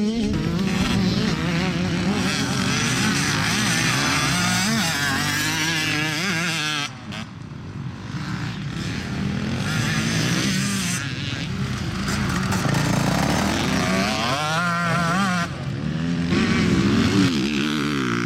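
Enduro dirt bike engines revving hard, the pitch rising and falling as the riders accelerate and change gear through the corners. The sound cuts abruptly about seven seconds in, and again later, as different bikes take over.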